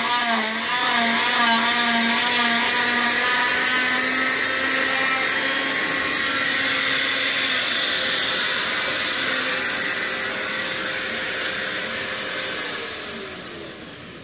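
Cast-removal saw and its De Soutter Medical dust-extraction vacuum running steadily with no cut in progress, then switched off and winding down with a falling whine near the end.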